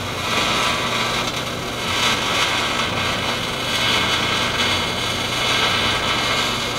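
MIG welding arc burning steadily on steel plate, an unbroken crackle and sizzle as the bead is run in one continuous pass.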